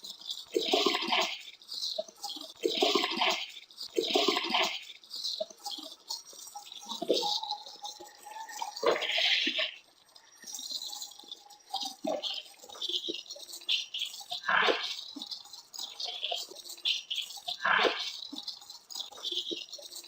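Garbled, heavily filtered voice audio: speech-like bursts and hisses that form no clear words, sounding like an unintelligible foreign language.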